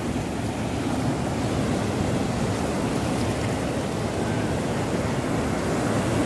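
Sea surf breaking and washing over shoreline rocks: a steady rushing noise, with most of its weight in the low end.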